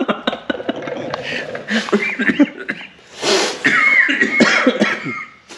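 Men laughing hard in short breathy bursts with coughing, and a high squeaky wheeze a little past the middle.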